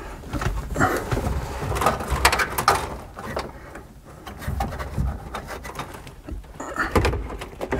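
Handling noises from behind a car dashboard: rustling, scraping and irregular clicks and knocks as a speedometer cable is worked into the back of a speedometer.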